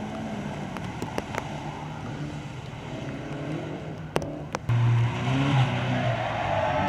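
Classic rally car engines running, with a few sharp clicks. About five seconds in, one engine gets louder and its revs rise and fall.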